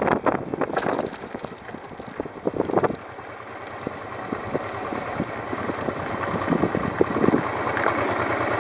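Honda Transalp 650's V-twin engine slowing to a low idle as the bike rolls to a stop. Wind noise fades in the first second, and the tyres crackle over gravel.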